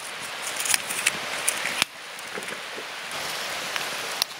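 Steady hissing with scattered crackles and clicks, with light crinkling of a small foil wrapper in the first second or so. The level drops suddenly a little under two seconds in, and the hiss goes on more quietly with a few crackles, like a fire burning under a simmering soup pot.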